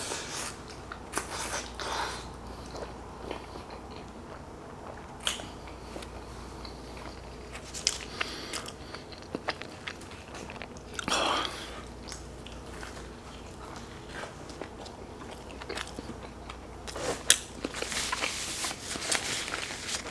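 Close-miked eating of pepperoni pizza: biting into a slice and chewing with wet, crunchy mouth sounds, in short irregular bursts.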